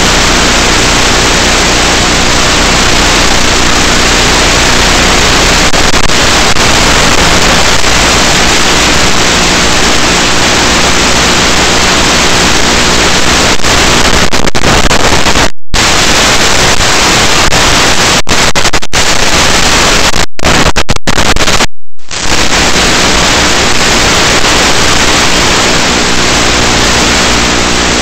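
Loud, even static hiss with a faint low hum underneath, the audio of an analog FPV video link. It cuts out to silence for a moment a few times past the middle.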